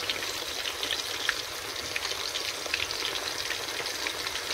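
Spice-coated fish frying in a pan of hot oil: a steady sizzle with many small crackles and pops.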